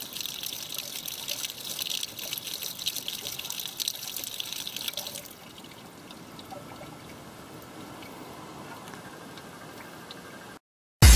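A stream of water pouring and splashing onto a metal penlight lying on concrete, stopping about five seconds in, followed by a faint steady hiss. Loud music starts right at the very end.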